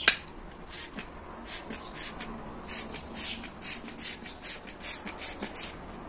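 Plastic trigger spray bottle squeezed over and over, about two short spritzes a second, each a brief click and hiss. The sprayer is faulty and not spraying properly.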